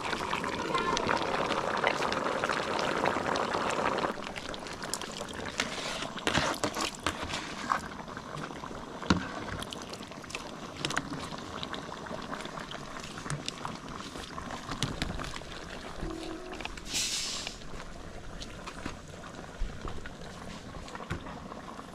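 Pot of goat ragout cooking, a liquid bubbling and hissing that is louder for about the first four seconds, with scattered light knocks.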